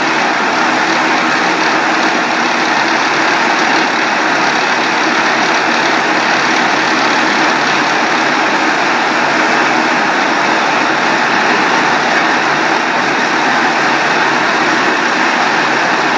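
Corn silage baler machine running, a loud, steady mechanical noise that holds unchanged throughout.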